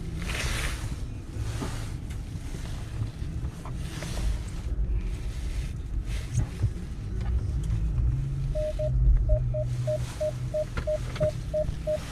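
Low rumble of a vehicle with rustling and wind noise on the microphone; about two-thirds of the way in, a rapid run of short electronic beeps starts, about two a second.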